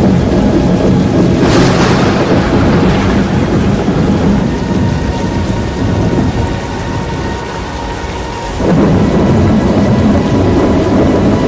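Loud thunderstorm noise: a deep, continuous rumble under a hiss of rain. It eases off about seven seconds in and surges back sharply near the nine-second mark.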